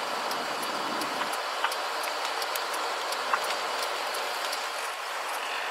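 Car cabin road and tyre noise, a steady hiss while driving on a snowy highway, with a faint, even ticking about three times a second.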